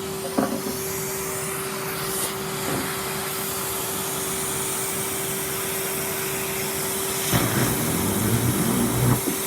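Vacuum cleaner running with a steady motor hum; about seven seconds in a sweet is sucked up and rattles and rumbles up the hose for a couple of seconds.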